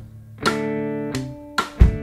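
Background music: strummed guitar chords, struck about half a second in and again near the end, with a drum hit just before the end.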